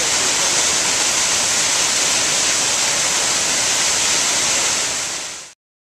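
A triple waterfall pouring down a cliff: a steady, even rush of falling water. It fades briefly and then cuts off suddenly near the end.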